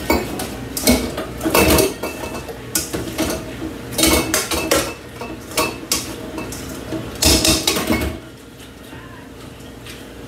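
Metal pots and utensils clattering and scraping in a run of sharp knocks and rings, as cooked elbow macaroni is handled into a pan of cheese sauce; the clatter stops about eight seconds in.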